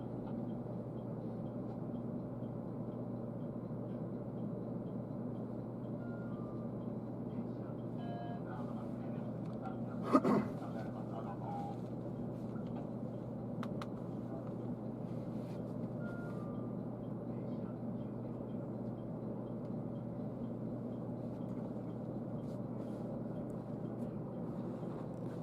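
Steady hum inside a stationary train carriage, held during a stop for a safety check. About ten seconds in there is one sharp, loud clunk, and a faint falling two-note tone sounds twice.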